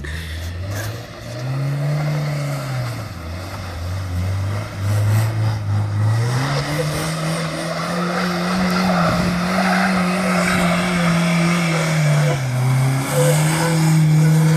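Honda CR-V engine revving up and down under load as the car pushes through snow, its pitch rising about a second in, dropping back, climbing again around six seconds and holding high, with a dip near the end. A steady hiss of tyres churning through snow runs under it.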